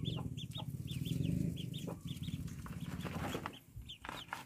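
Ducklings peeping in a quick run of short high chirps, about three a second, over a hen's low clucking that fades out past the middle.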